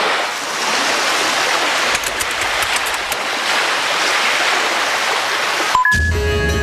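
Steady rushing of water, a loud even wash, which cuts off abruptly near the end as music with plucked strings begins.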